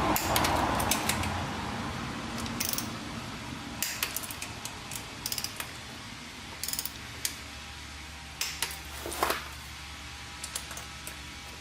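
Socket ratchet and metal hand tools clicking in short quick bursts as bolts are run down and torqued, with a louder rustle at the start.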